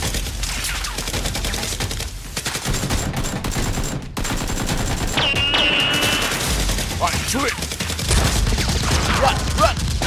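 Rapid automatic gunfire sound effects, continuous fast shots with no break.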